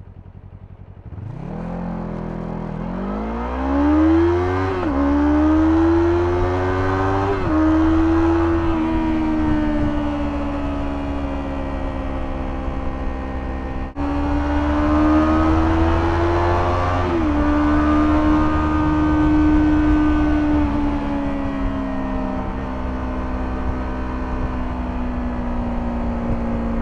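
Kawasaki Z400's 399 cc parallel-twin engine through its stock exhaust, idling briefly and then pulling away hard, its note climbing steeply and dropping back at each quick upshift, twice in the first few seconds. It then runs at steady speed with wind rush, breaks off suddenly about halfway, and picks up again in another rising pull, one more upshift, and a steady cruise that slowly settles.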